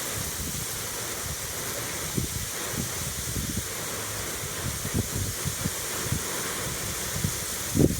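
Autumn wind blowing, a steady hiss with irregular low gusts buffeting the microphone, the strongest near the end.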